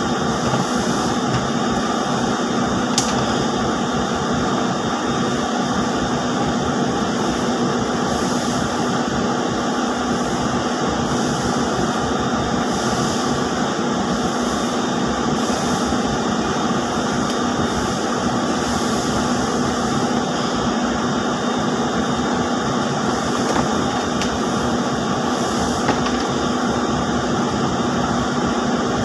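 Steady industrial machinery drone with a constant hum, typical of textile mill machinery such as ring spinning frames running; a faint click about three seconds in.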